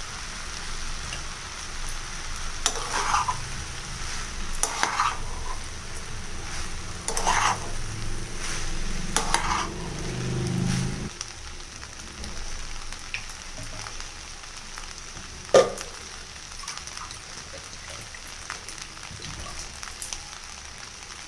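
Soaked basmati rice and vegetables frying in oil in a kadai on high flame, sizzling steadily while a spatula stirs them, this is the stage before water is added. For the first ten seconds or so there is a scraping stroke about every two seconds; after that the sizzle goes on more quietly, with one sharp knock about fifteen seconds in.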